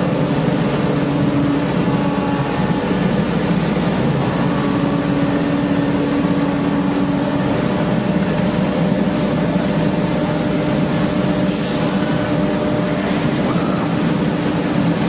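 Steady, continuous drone of industrial machining machinery, with a low hum and a few faint steady tones above it.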